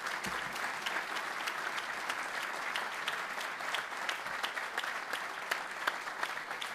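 Audience applauding steadily: a dense patter of many hands clapping at once.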